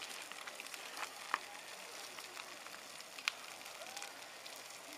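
Campfire burning under cooking pans: a steady hiss with scattered crackles and a few sharper pops, the loudest about a second in and again just past three seconds.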